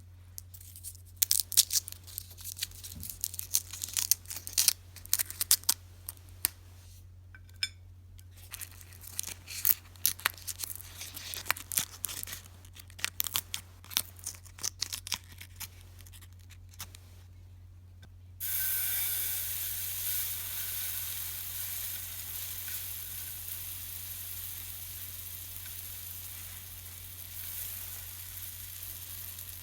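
Scattered sharp crackles and clicks, then, a little over halfway, a sudden steady sizzle that slowly fades: a heated knife pressed against Halls cough drops, melting the hard candy.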